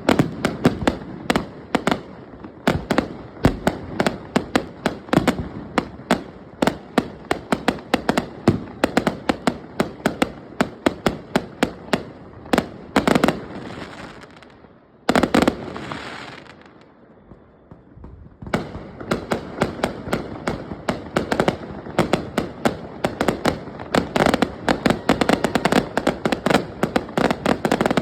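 Fireworks going off in a dense string of sharp pops and crackles, several a second. About halfway through they thin out to a short lull, then pick up again.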